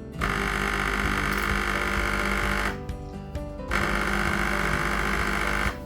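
Breville Bambino Plus steam wand auto-purging after the wand is put back: the machine's pump runs with a buzz and hiss in two spells of about two seconds each, a short pause between them.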